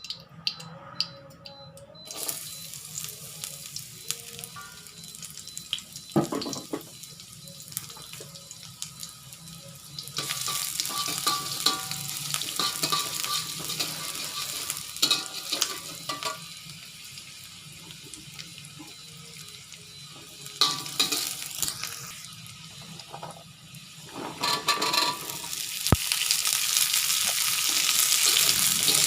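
Food sizzling in a frying pan as it is stirred, with a spatula knocking and scraping against the pan. The sizzle grows louder about ten seconds in and again near the end.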